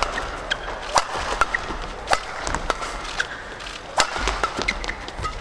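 Badminton rally: rackets sharply striking the shuttlecock about once a second, with short squeaks of shoes on the court floor between the hits.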